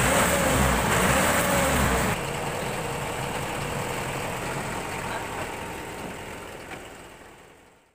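Mahindra 595 tractor's diesel engine running, with a strong low rumble for about the first two seconds; it then drops suddenly to quieter, steady running that fades out near the end.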